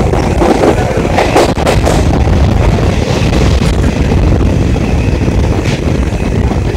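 Deccan Queen express passenger train running at speed, heard from an open window: a steady rumble of wheels on the rails mixed with wind buffeting the microphone. A few sharp clacks come through, about a second and a half in and again near the end.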